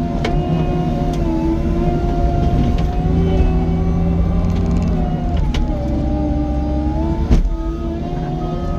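Cat 255 skid steer's diesel engine running under load as it works through brush, its pitch rising and dipping with the throttle and the work. A few knocks are heard, and one loud bang comes about seven seconds in.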